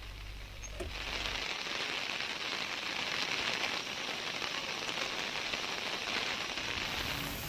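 Steady hiss of heavy rain, coming in about a second in after a faint low hum.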